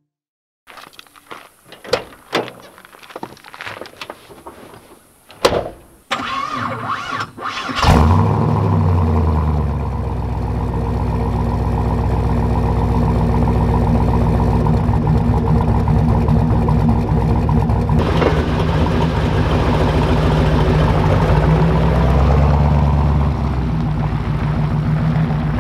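Twin-turbocharged LS1 V8 in an 80 Series Toyota Land Cruiser starting up: after several knocks and clicks it cranks and catches about eight seconds in, flares briefly, then settles into a steady idle.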